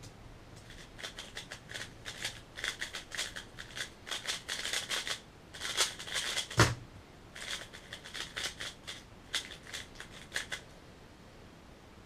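Valk 3M speedcube being turned very fast: rapid runs of plastic clicking and clacking layer turns for about six seconds. A single hard thump about six and a half seconds in, as the solve is stopped on the timer, is followed by a few more bursts of turning.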